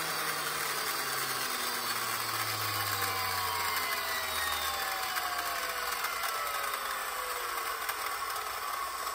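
DeWalt DCN692 cordless framing nailer's brushless flywheel motor coasting down after spinning up. Its whine falls slowly and steadily in pitch for several seconds. There is a slight crackle as it stops, and the motor bearing turns out to be worn.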